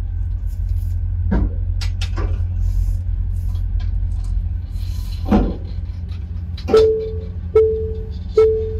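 Tesla parking-sensor warning chimes, a pitched beep repeating about once a second, starting about two-thirds of the way in: the car's proximity sensors are set off by the ferry's railings close on both sides. Under it runs a steady low rumble, with two dull thumps earlier on.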